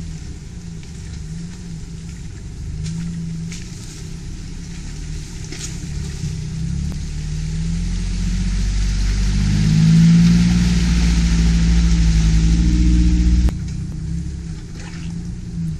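Jeep Wrangler engine pulling through a water-filled mud hole, its note rising and growing louder over the middle of the stretch while water splashes and hisses. The sound drops off suddenly near the end to a quieter engine running.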